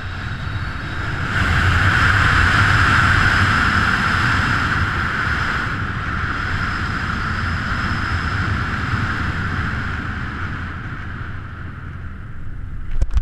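Airflow rushing over the camera microphone of a speed flyer diving fast, loudest a second or two in and easing off as he flares low over the grass. Near the end, the first knocks of his feet touching down.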